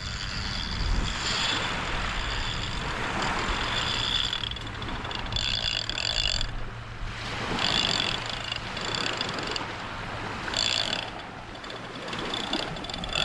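Surf washing on the beach with wind buffeting the microphone, swelling and easing. A high buzzing cuts in and out several times over it.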